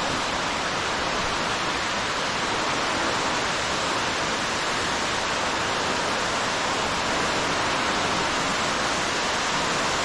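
Underground waterfall pouring down a deep cave pit: a steady, even rush of falling water with no breaks.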